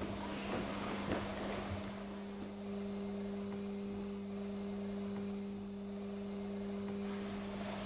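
Steady low electrical-type hum. A second, higher steady tone joins about two seconds in and stops just before the end, with a couple of faint soft knocks in the first second or so.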